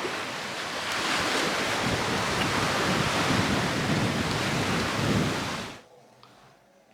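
Surf washing on a beach, mixed with wind on the microphone, swelling in the middle and then cutting off suddenly near the end into near silence.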